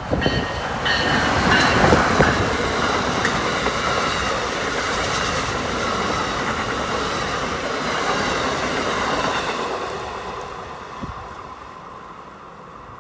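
Amtrak passenger train, an ACS-64 electric locomotive hauling stainless-steel coaches, passing close by at speed with its steel wheels running on the rails. The noise holds steady for most of the pass, then fades over the last few seconds as the train moves away.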